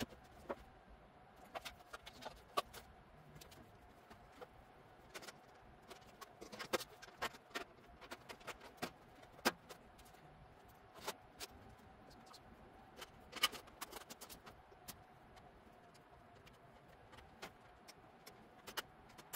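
Irregular light clicks and clinks of sheet-metal cabinet panels being handled and fitted, over a faint steady tone.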